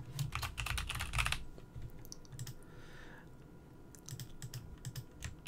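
Computer keyboard typing: a fast run of keystrokes over the first second and a half, then a few scattered single clicks.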